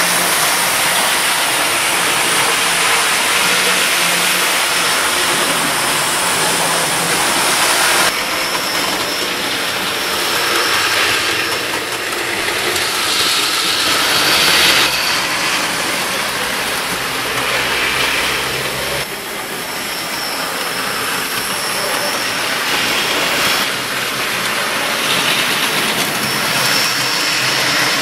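OO-gauge model trains running on the layout: the steady hum of their small electric motors and the rolling of wheels on the track, with the sound changing abruptly about eight seconds in and again several times after.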